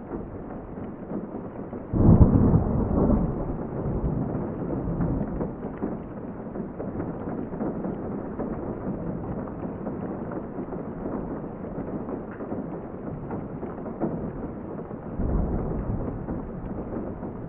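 Steady rain heard muffled from indoors. About two seconds in, a sudden louder, low-heavy surge fades away over a couple of seconds, and a smaller surge comes near the end.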